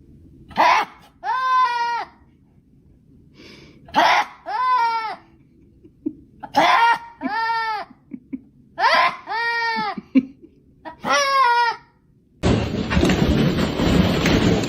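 A voice making a repeated cry five times, about every two and a half seconds: each time a short breathy rasp, then a drawn-out cry that rises and falls in pitch. Near the end a loud, even rushing noise takes over.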